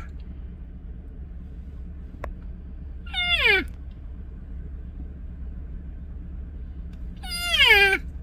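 A cat meowing: two drawn-out meows that slide down in pitch, about three seconds in and near the end, over a steady low hum.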